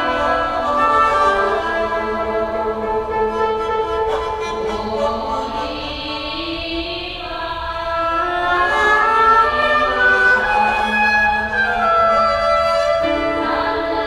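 Live chamber-ensemble music with electronics: many overlapping held notes, with slow sliding pitches in the lower voices, in bowed-string and choir-like timbres.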